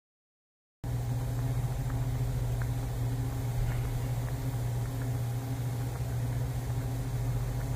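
Pot of buckwheat naengmyeon noodles at a hard boil on the stove: a steady low hum and rumble with a few faint pops, starting suddenly about a second in.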